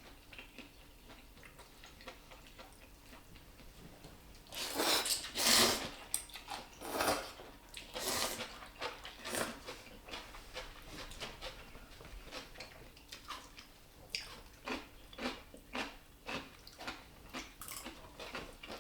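Crisp food being bitten and chewed close to the microphone: a series of loud crunching bites a few seconds in, then lighter, quicker chewing crunches later on.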